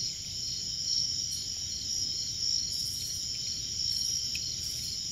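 Night insects chirping, a steady high trill with a second pulsing chirp about four times a second.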